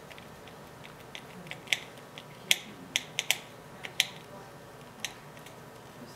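Irregular sharp clicks and taps of hard plastic parts as the single screw holding the T-bar is taken out of a MoPod ice-fishing camera rotator, about half a dozen in a few seconds.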